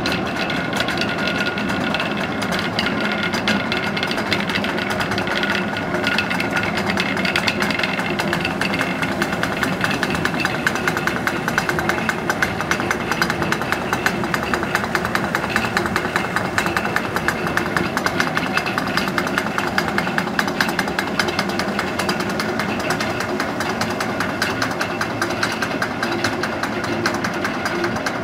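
Water-powered stone gristmill running and grinding grain: a steady, fast rattling clatter that does not let up.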